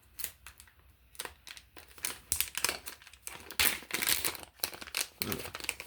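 Plastic packaging bags crinkling and rustling as they are handled and pulled open, in irregular bursts of crackles.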